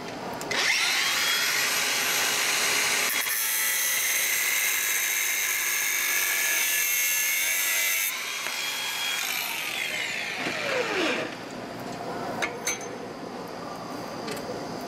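Cordless Makita angle grinder with a cut-off disc spinning up and cutting through a steel rod held in a vise, a steady high-pitched grinding. The grinder is switched off about 8 seconds in and winds down over the next few seconds, falling in pitch. Two sharp clicks come near the end.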